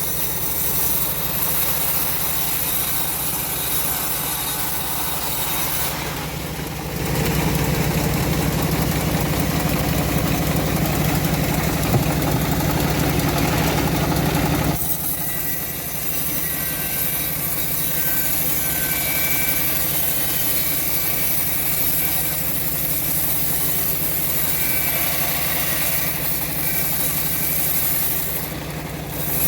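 Engine-driven homemade bandsaw mill running steadily while sawing teak. It gets louder and fuller for about eight seconds from around seven seconds in, then settles back to a steady run.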